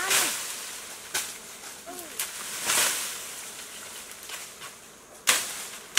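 Bamboo branches and leaves swishing and rustling as they are poked and pushed, with a sharp snap about five seconds in. A few faint short calls in between.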